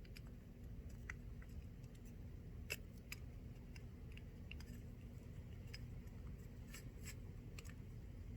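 Faint, irregular small clicks and light scrapes from handling the anti-siphon valve's small parts while the old gasket is removed, over a steady low background rumble.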